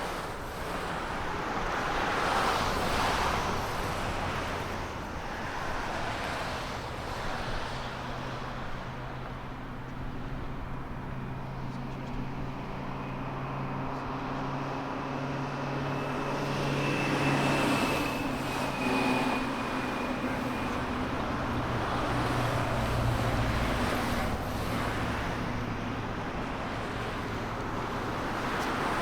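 Road traffic with cars passing one after another, each swelling up and fading away over a continuous tyre and engine rumble. Through the middle stretch a low, steady engine hum runs under the passes.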